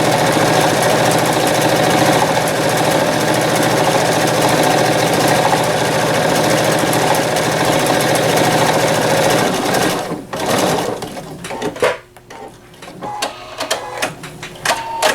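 PFAFF Quilt Expression 4.0 computerized sewing machine running steadily, stitching a decorative pattern. It stops about ten seconds in, followed by a few scattered clicks and knocks.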